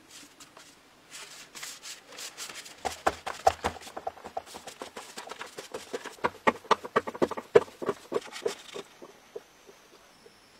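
Stick broom sweeping a packed-earth floor: quick, irregular scratching strokes that come thickest midway and die away near the end.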